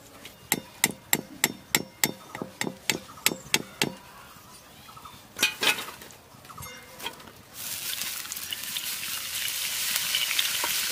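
A metal ladle clinks sharply against the rim of an iron wok about a dozen times in quick succession, knocking the oil off a batch of fried potato shreds. Two more knocks follow. Then, about two-thirds of the way in, a steady sizzle of hot oil starts as raw grated potato goes into it.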